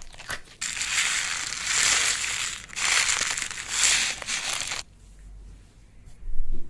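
Slime being squeezed and worked with a dense crackling, crunching noise in about four swells, which stops suddenly just under five seconds in. A short soft thump comes near the end.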